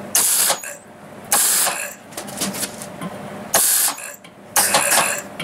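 Arc welder laying short tack welds on the steel tube legs of a kettle-grill stand: four separate bursts of arc noise, each about half a second long.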